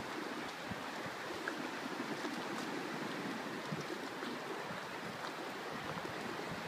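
Steady rushing of rough sea and surf under typhoon wind, an even wash of noise with no single loud event.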